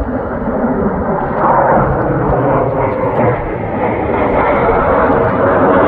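Jet engines of a pair of fighter jets flying overhead in formation: a steady rushing noise that grows louder over the first couple of seconds and stays loud.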